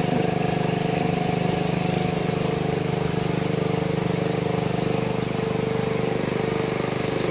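A wooden river boat's engine running steadily at an even speed as the boat moves along, a constant hum with a fast, even beat.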